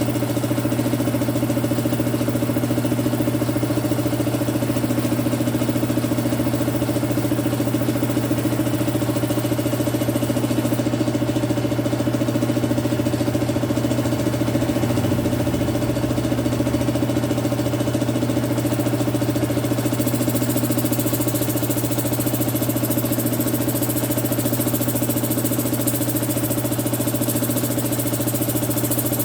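Electric compressor motor running steadily with a constant hum.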